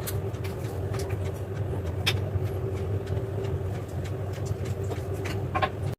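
Steady low background hum with a faint steady tone above it, broken by a few faint clicks.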